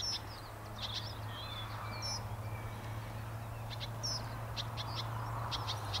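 Small birds chirping and calling in short, scattered notes that come more often near the end, over a steady low hum.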